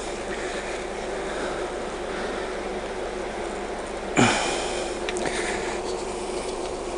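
Honey bees humming steadily from an opened Langstroth hive's brood box, with one brief louder swoosh about four seconds in, falling quickly in pitch.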